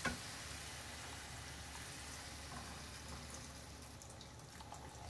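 Shrimp-shell broth being poured from a saucepan into a frying pan of stuffed squid, a steady liquid pour that eases off near the end. A single sharp knock right at the start, as the saucepan rests against the pan's rim.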